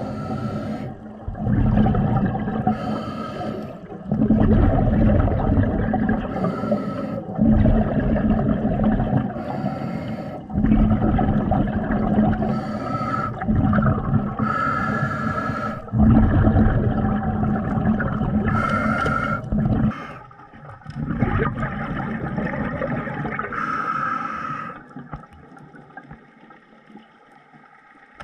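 A diver breathing underwater during spearfishing. A short hissing breath comes about every three to four seconds, each followed by a longer low rumble of exhaled bubbles. It dies away in the last few seconds.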